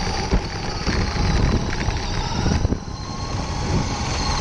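RC dirt-oval car running, heard through its onboard camera: a steady high whine over rumbling and irregular knocks and rattles from the chassis on the dirt.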